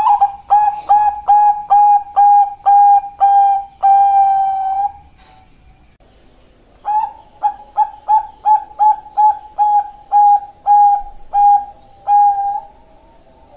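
Zebra dove (perkutut bangkok) singing: two long runs of short, rhythmic coos, about two a second, with a pause of about two seconds between them. The last coo of each run is drawn out.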